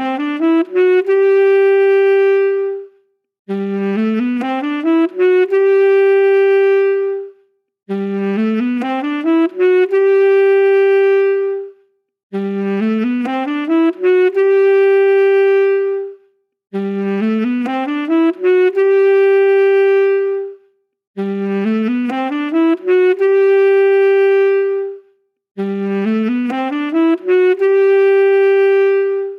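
Solo saxophone playing the same short phrase over and over: a quick rising run of notes ending on a long held note, with a brief silence before each repeat, about every four and a half seconds.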